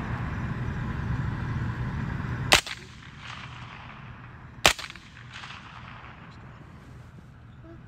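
Two rifle shots about two seconds apart, each a single sharp crack, fired at a coyote through a thermal riflescope; a steady background hiss drops away after the first shot.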